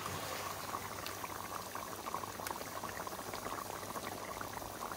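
Mutton curry gravy bubbling at a simmer in an open pot: a steady run of small pops from bursting bubbles.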